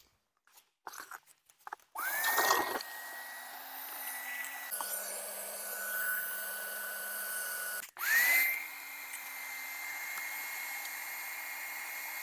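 Pontec PondoMatic pond vacuum switched on: its motor spins up with a rising whine into a steady high whine and rush of air as the nozzle draws water and sludge out of a pond filter chamber. The pitch drops a little after a few seconds, and near the end the vacuum cuts out briefly and spins up again to a steady whine.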